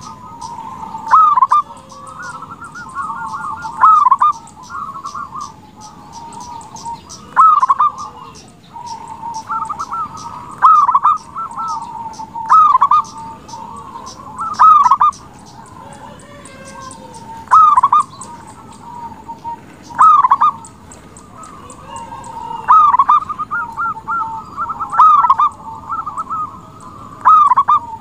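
Zebra dove (perkutut) singing its rolling, trilled coo over and over, with a loud phrase about every two to three seconds, roughly eleven in all. Faint, fast high-pitched ticking chirps sound in the background.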